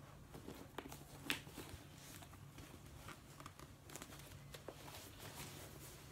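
Faint handling of a brown calfskin leather satchel as it is opened and its compartments pulled apart: soft rustling with a few light clicks, the sharpest a little over a second in.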